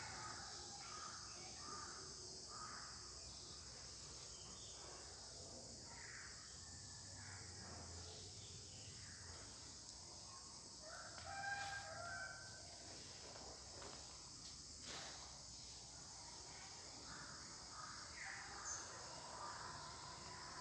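Faint outdoor ambience: a steady insect chorus with scattered bird calls, and one louder, longer call about halfway through.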